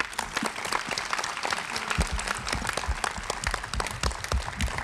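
Audience applauding, many hands clapping together; it breaks out suddenly and keeps up steadily.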